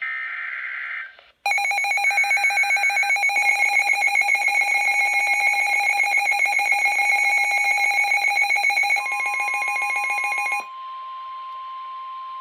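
Weather alert broadcast opening: the end of a burst of SAME digital header data, then a loud, rapidly pulsing electronic alarm for about nine seconds. About nine seconds in, a steady 1050 Hz NOAA Weather Radio warning alert tone starts under the alarm and carries on alone after the alarm stops. The tones signal an incoming warning, here a severe thunderstorm warning.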